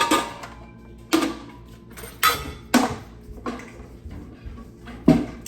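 Mixing bowls and their lids knocked and set down against each other and the counter: about six separate clattering knocks with a short ring after each.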